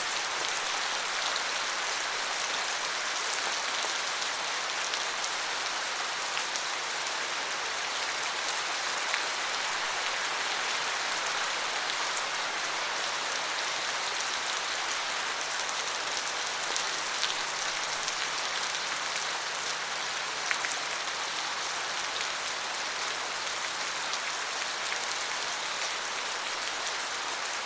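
Steady rain falling, an even hiss of drops with small scattered patters, no pauses or swells.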